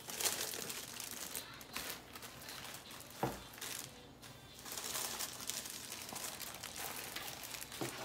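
Clear plastic plant sleeves crinkling and rustling as they are handled, with a single knock a little over three seconds in.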